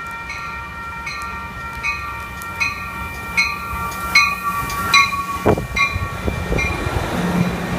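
Amtrak Pacific Surfliner passenger train pulling into a station, cab car first, while a warning bell rings with a strike about every three-quarters of a second. From about halfway a rumble of wheels and cars builds as the bilevel cars roll past, and the bell fades near the end.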